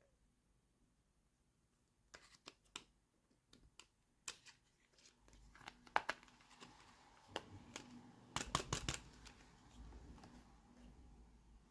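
Toy packaging being handled and opened. Scattered light clicks and taps are followed by crinkling, rustling and tearing, with a burst of sharp crackles about two-thirds of the way through.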